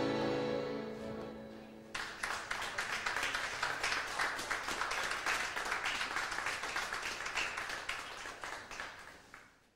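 Piano accordion holding a final chord that dies away, then an audience applauding. The applause fades out near the end.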